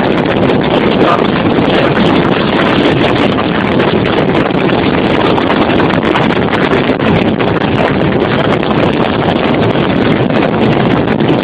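Steady rush of wind and road noise from a car driving at speed, with wind buffeting the microphone.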